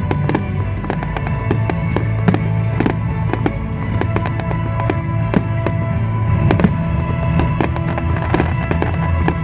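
Fireworks going off in quick succession, sharp bangs and crackles several times a second, with music playing loudly underneath.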